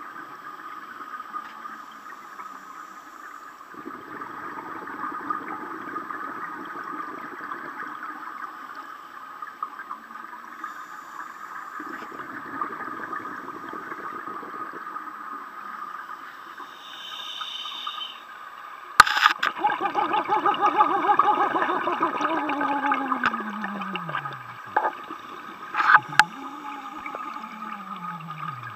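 Scuba diver breathing underwater: bursts of exhaled bubbles from the regulator every several seconds, over a steady high hum. About two-thirds through, a click starts a louder, longer stretch of bubbling, and two falling tones follow near the end.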